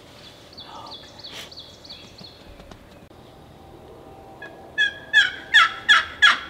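Turkey calling: a run of five loud, sharp notes in about a second and a half near the end. Fainter, quick high chirping runs from about half a second to two seconds in.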